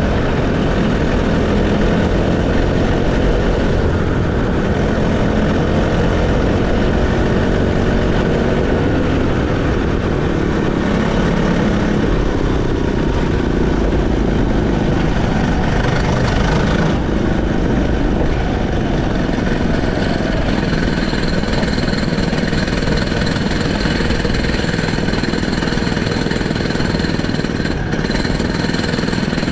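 Honda GXH50 50cc single-cylinder four-stroke kart engine running as the kart slows from racing speed to a crawl, heard from onboard with low rumble; its note eases off and settles into a steadier, lower-revving run in the second half.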